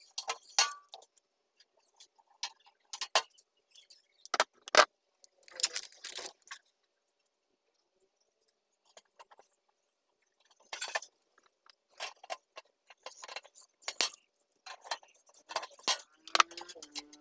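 Sharp metallic clicks, snaps and clinks from a hand pop-rivet gun and loose rivets and brackets as a handle is riveted onto a steel drum. The clicks come in irregular clusters, with a pause of a few seconds in the middle.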